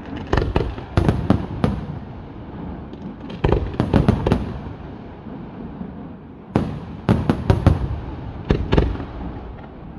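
Fireworks display: aerial shells bursting in several volleys of sharp bangs a few seconds apart, with a low rumble between the volleys.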